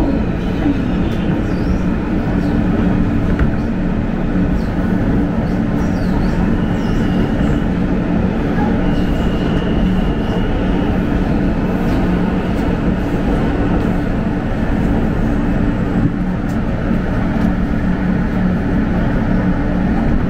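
R160 subway train running through a tunnel, heard from inside the car: a steady rumble of wheels and motors, with a faint high whine twice near the middle, as it pulls into a station.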